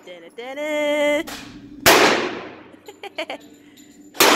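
Two pistol shots about two and a half seconds apart, each sharp crack followed by a reverberant tail off the walls of an indoor range.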